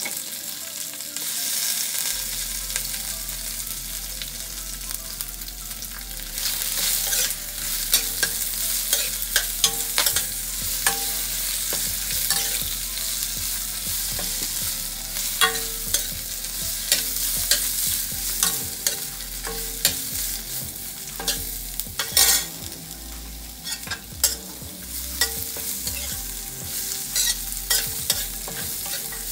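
Aromatic leaves and roots sizzling in hot oil in a stainless steel wok, with a metal ladle scraping and clinking against the pan as they are stirred.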